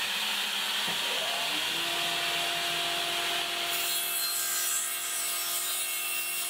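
Table saw running steadily while its blade, tilted to 20 degrees, cuts a bevel along a planed pallet board.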